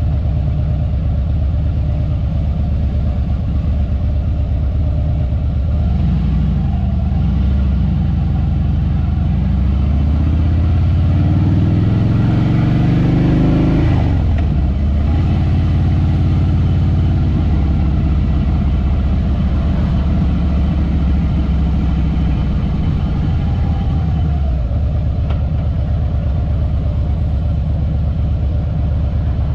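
Harley-Davidson Fat Boy Lo's V-twin engine running as the bike rides along. About nine seconds in, its pitch climbs steadily for several seconds as it accelerates, then drops sharply and settles back to a steady cruise.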